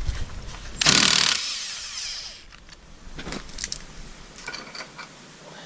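A short burst of an impact gun loosening a bolt about a second in, followed by a few light metallic clicks and knocks of tools being handled.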